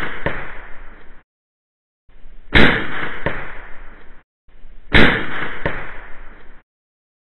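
Modded Crosman 1322 .22 multi-pump pellet pistol firing twice, two and a half seconds apart, each shot a sharp crack followed by a fainter click about two-thirds of a second later. Another such click comes just after the start, trailing a shot fired a moment before. A hiss runs under each shot and cuts off abruptly in between.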